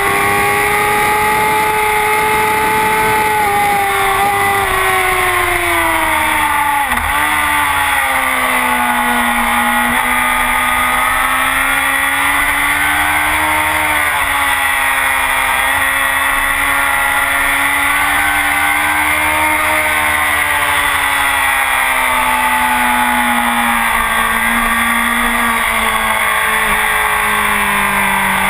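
Honda CBR1000RR's inline-four engine through a full Akrapovic exhaust, running hard on a race track. Its note falls about five to seven seconds in, with a brief dip, then rises and falls through the rest over a steady rush of noise.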